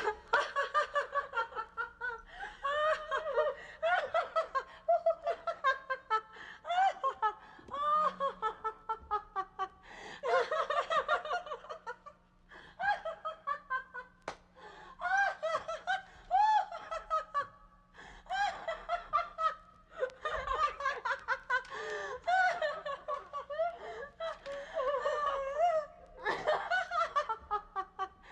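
High-pitched voice laughing and giggling in repeated fits of quick, choppy pulses, with short pauses between fits.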